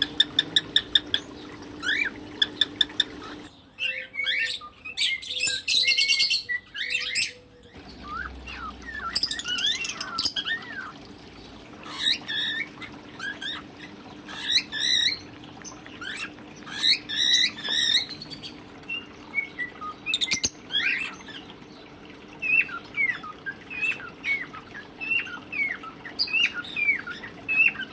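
Male whiteface cockatiel singing: a fast run of clicks at the start, a loud stretch of dense chatter a few seconds in, then a long string of short, rising and falling whistled notes.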